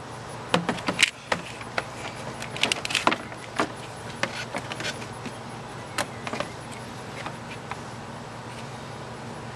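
Air intake hose being handled and fitted onto the engine: a quick run of plastic and rubber knocks, creaks and clicks over the first few seconds, one more sharp click about six seconds in, then only light handling noise.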